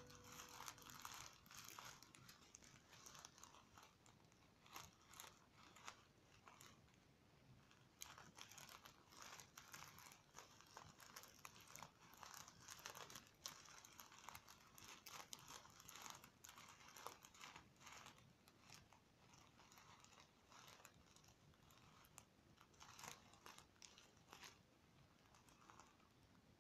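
Faint crinkling and crackling of a clear plastic star-shaped squishy filled with foam beads as it is squeezed by hand, in irregular short crackles.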